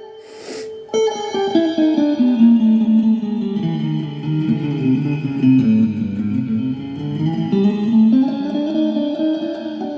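Guitar improvising a run of quick single notes that sinks from high to low over about five seconds, then climbs back up near the end. A short scratchy noise comes about half a second in.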